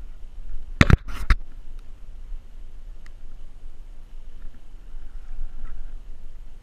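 Three sharp knocks close together about a second in, over a low steady rumble.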